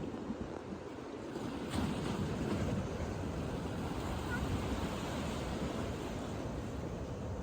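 Sea waves washing onto a beach, with wind buffeting the microphone; a wave surges in about two seconds in.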